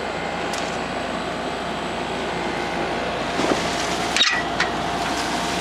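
GE through-the-wall air conditioner running, its outdoor side giving a steady fan-and-compressor hum, with a few brief clicks about three and a half to four and a half seconds in.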